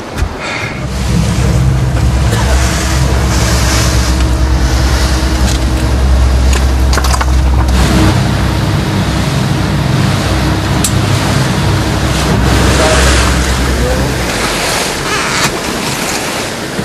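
Boat motor running steadily with the boat under way, over loud wind and water noise. The motor stops near the end, leaving the wind and water.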